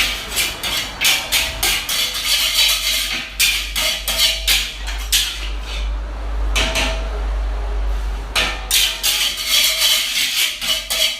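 Busy restaurant kitchen: metal utensils clattering and scraping against pots and pans in quick, irregular knocks, over a steady low hum.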